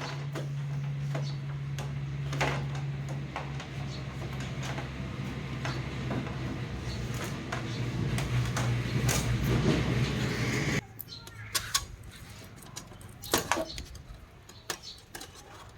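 A small electric motor running steadily with a rushing hiss, cutting off abruptly about eleven seconds in; light clicks and taps follow.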